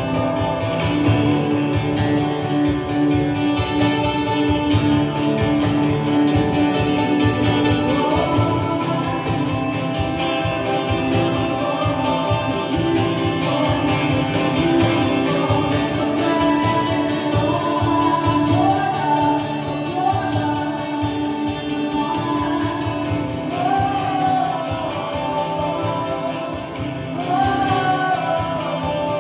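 Worship song played on strummed guitar, with a voice coming in singing about eight seconds in.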